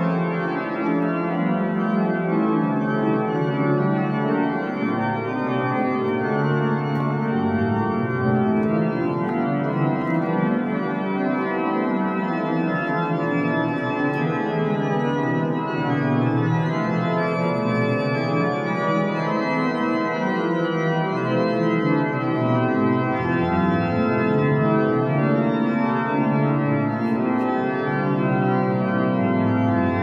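Organ music: held chords over a bass line that moves slowly, changing every few seconds.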